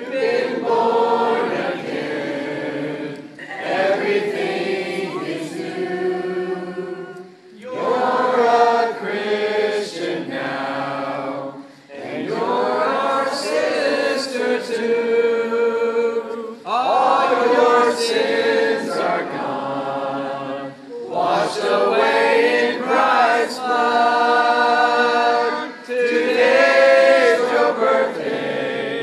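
Church congregation singing a welcome song together, in sung lines of about four seconds with short breaks for breath between them.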